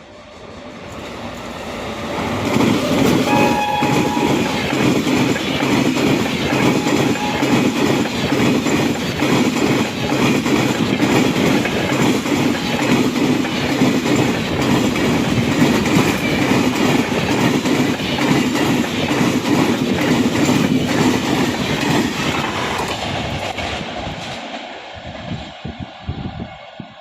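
Passenger express train with LHB coaches running past at speed. Its wheels clatter rapidly over the rail joints in a dense, continuous racket that swells up over the first couple of seconds, holds steady for about twenty seconds, then dies away near the end. A brief high tone sounds about three seconds in.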